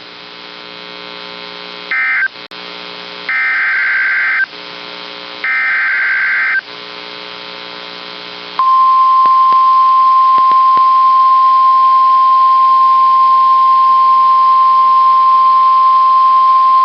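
NOAA Weather Radio emergency alert: over a low hum, three warbling bursts of SAME digital header data about a second apart, the first one short, then about eight and a half seconds in the steady 1050 Hz warning alarm tone starts and holds. Together they announce a new warning coming on the air.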